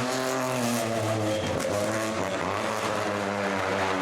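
Rally car engine running at fairly steady revs, its pitch shifting in small steps.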